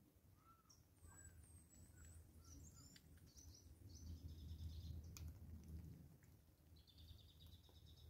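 Faint bird calls: scattered high chirps and short whistles, then two rapid trills of quickly repeated notes about four and seven seconds in, over a low steady background rumble.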